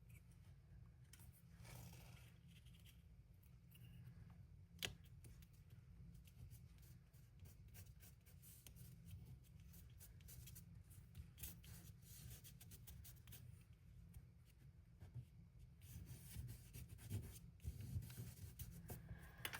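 Near silence with faint rustles and light taps of card-stock pieces being handled, and one sharp click about five seconds in.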